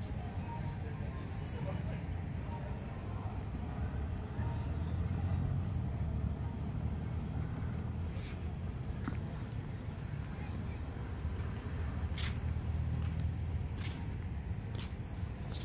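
Crickets chirring in a steady, high-pitched, unbroken chorus over a low background rumble.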